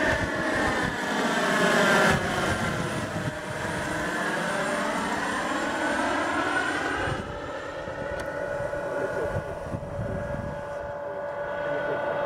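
Turbine engine and rotors of a radio-controlled scale CH-53A helicopter in flight, a steady whine with several pitches. The pitch sags and climbs back over the first several seconds, then holds steady and a little quieter from about seven seconds in.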